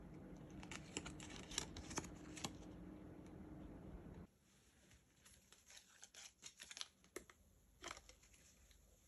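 Faint crinkling, rustling and tearing of packaging being handled, in scattered short crackles; the background hum drops away abruptly about four seconds in.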